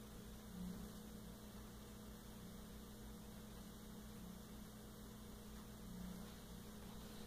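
Faint, steady low electrical hum over quiet room tone.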